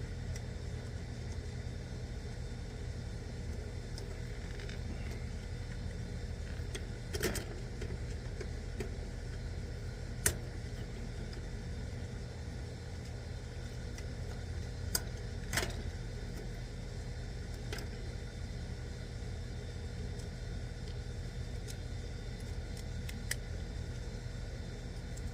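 Steady low rumble with a faint constant hum, broken by several sharp clicks and taps, the loudest about ten seconds in, from hand work on the wiring of an air conditioner's new contactor.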